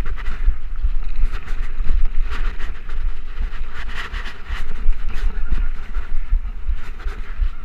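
2013 Trek Rumblefish Pro full-suspension mountain bike ridden fast over dirt singletrack: tyre roar and irregular rattling and clatter of the bike over bumps, under heavy wind buffeting on the microphone.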